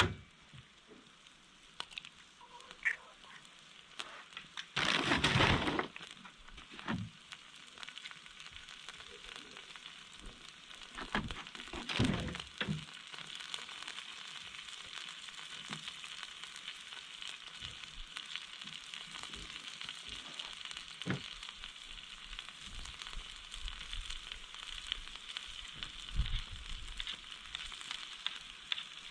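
Food sizzling and frying in a hot pan, a steady hiss that sets in after the first several seconds, with a brief loud burst of noise about five seconds in and a few clicks and knocks.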